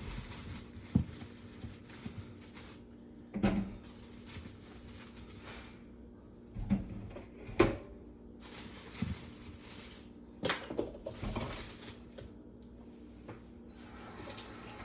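Kitchen handling sounds: scattered knocks and clatter of items being set down and moved on a counter, with light rustling in between.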